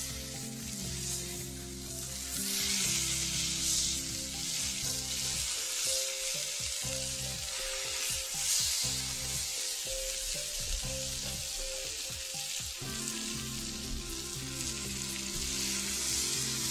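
Ground beef smash-burger patties sizzling on a hot griddle over charcoal as they are pressed flat with a spatula and a burger press. The sizzle swells in waves as the meat is pushed down.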